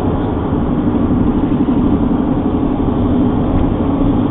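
Steady road noise inside a car cruising on the freeway: a continuous low rumble of engine and tyres with a humming drone.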